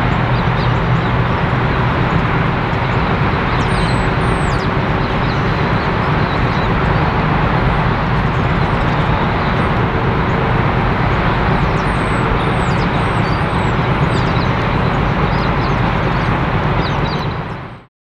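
Diesel locomotive running with a steady, deep engine hum.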